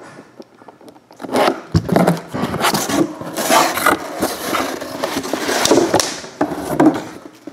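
Large corrugated cardboard shipping box being handled: its flaps opened and the box scraped and shifted, giving irregular scraping and rustling from about a second in until near the end.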